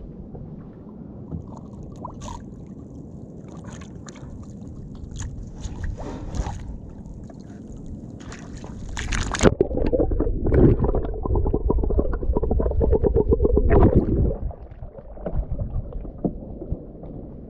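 Water lapping and sloshing against a small wooden outrigger boat while a fishing line is hauled in by hand, with a louder spell of rapid splashing for about five seconds midway as a hooked needlefish thrashes at the surface.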